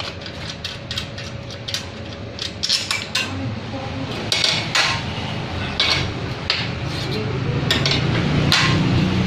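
Metal clinks and knocks as the hub and collar on a printing machine's film-roll spindle are handled and tightened by hand, with a low rumble growing louder in the second half.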